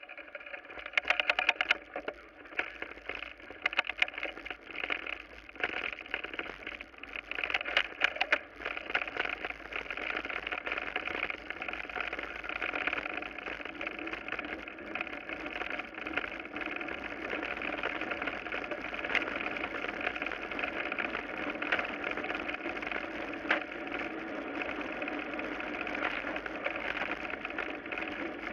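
Mountain bike rolling fast down a gravel forest road: in the first several seconds it rattles and knocks over the rough surface, then settles into a steady whir of tyres on gravel.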